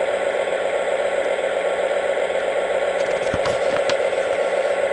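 Lionel Lion Chief Mystery Machine diesel locomotive standing stopped, its onboard speaker playing a steady idling diesel hum. A few light papery rustles and clicks come about three to four seconds in.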